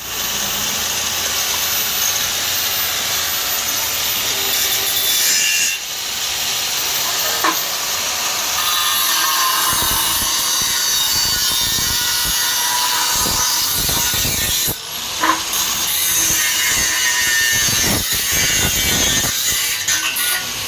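A power tool cutting steadily at a roofing job, with brief breaks about six and fifteen seconds in.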